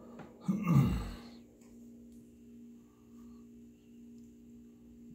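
A person's heavy sigh close to the microphone about half a second in, over a faint steady hum.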